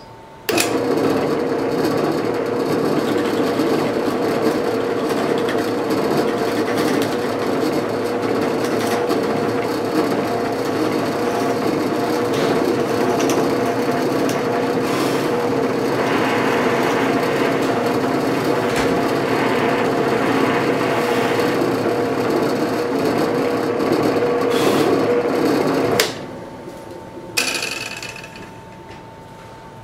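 Benchtop drill press starting up and running steadily with a constant motor hum as its bit bores through stacked plywood pieces. It stops near the end, followed by a single sharp knock.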